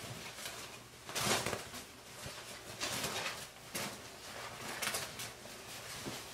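Rustling of fabric and packaging as a pink fabric apron is unfolded and pulled out of its wrapping by hand, in several brief bursts.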